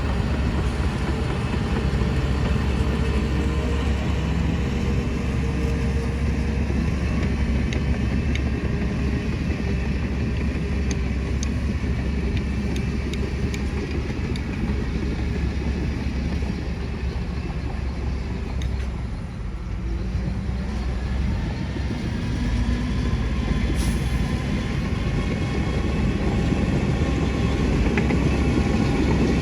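Heavy diesel engine of construction machinery running steadily. It eases off briefly about two-thirds of the way through, then builds again.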